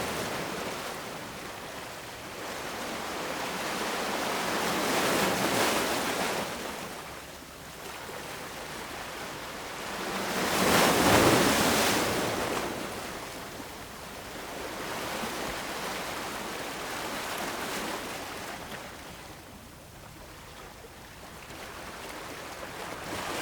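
Ocean surf breaking on a beach: a rushing wash of noise that swells and falls back every five or six seconds, loudest about halfway through.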